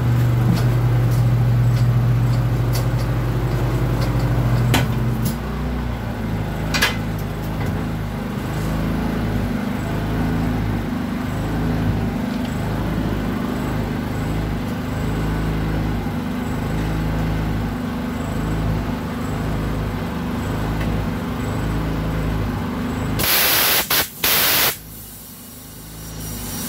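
Tire changer machine mounting a car tire onto an alloy rim: its turntable motor hums steadily for the first five seconds over a constant low machine drone, with a few light knocks of tools on the rim. About three seconds before the end, two short loud blasts of compressed air, used to seat the tire's bead.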